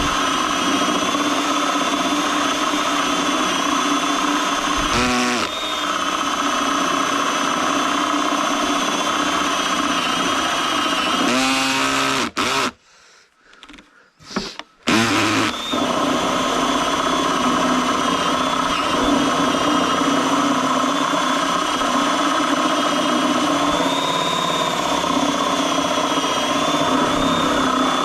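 Electric power tool motor running steadily under load. About twelve seconds in it winds down and stops for a couple of seconds, then spins back up and carries on running.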